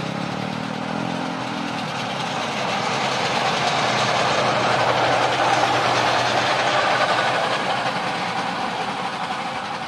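Motorized rail trolley, a flat track-workers' lorry pushed by a small motorcycle-type engine, running along the rails. Its engine hum and the rumble of its steel wheels on the track grow louder, peak about halfway through, then fade as it passes.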